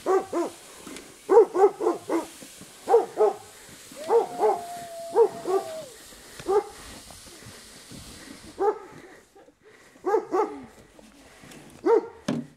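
A dog barking off and on in quick runs of two to four barks, with one longer drawn-out note about four seconds in.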